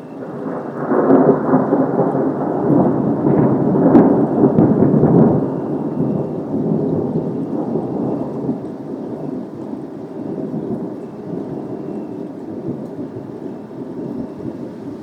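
A long rolling thunder rumble over rain. It swells about a second in, has a sharp crack near its loudest point around four seconds, then slowly fades away.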